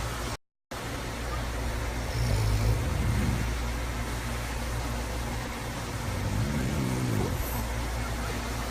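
A person snoring over a steady low rumble, with two louder snores about four seconds apart. A brief silent gap about half a second in.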